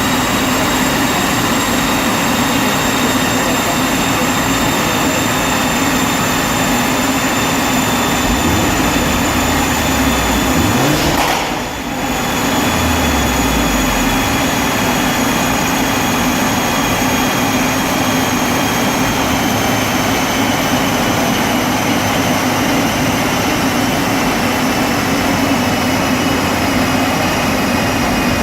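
Tuned Audi S1 running steadily on a rolling road dyno, a loud continuous mechanical sound with a high whine that slowly falls in pitch. About halfway through there is a brief low rise and fall in pitch and a short dip in loudness.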